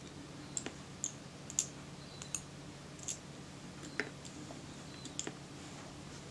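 Steel tweezers and small metal camera parts clicking faintly, about a dozen irregular light ticks, as the eyepiece glass is handled and set into the rangefinder housing of a Kodak Retina IIIS.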